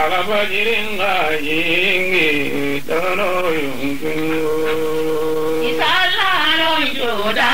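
A solo voice singing a slow, chant-like melody in long held notes that slide and waver in pitch.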